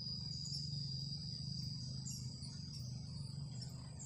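Insects calling in one continuous high-pitched drone, over a low steady rumble.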